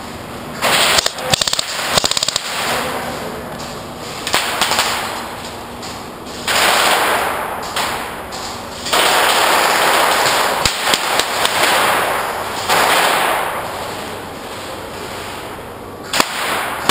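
Airsoft electric rifles firing full-auto: a rapid rattle of shots about a second in, then several longer bursts of two to three seconds each from about six to fourteen seconds in, with a few single shots near the end.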